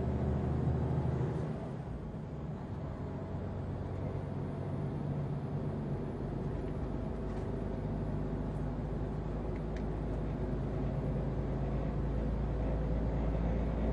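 Mercedes-Benz Actros truck's diesel engine running steadily at cruise, a low even drone, dropping slightly in level about a second and a half in.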